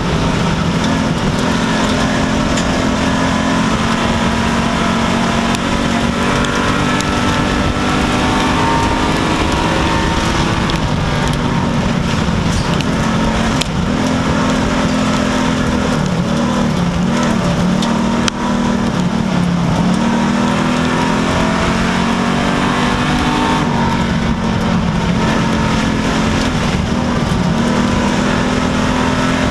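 Street stock race car's V8 engine running hard under racing load, heard from inside the cockpit, loud and unbroken with a steady rushing noise over it. Its note eases and wavers twice, about ten seconds apart, then climbs back to full.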